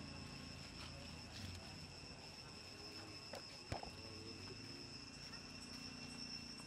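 Quiet forest ambience: a steady high insect drone, with scattered faint clicks and rustles and one sharper click a little past halfway.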